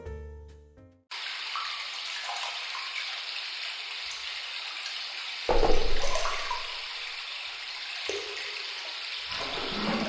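Steady rush of running water, with a louder, fuller surge about five and a half seconds in that fades away over the next second.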